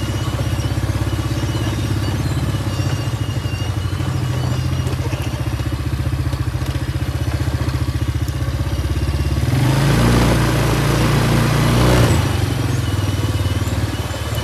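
Quad bike engine running steadily under way, swelling louder for a couple of seconds about ten seconds in.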